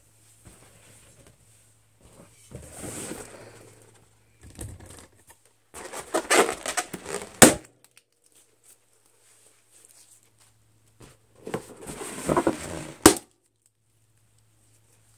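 Fingernails scratching and squeaking on taut latex balloons in two bouts, each ending in one sharp, loud balloon pop.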